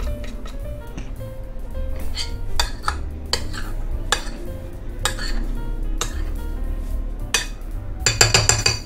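A metal spoon clinking against a glass bowl and scraping a potato masher while working mashed potatoes: single clinks about once a second, then a quick run of clinks near the end. Background music runs underneath.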